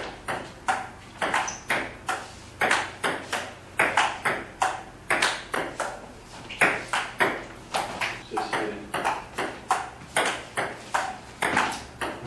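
Table tennis rally: the ball ticking sharply off rubber paddles and the tabletop, two or three ticks a second in quick runs with brief pauses between points.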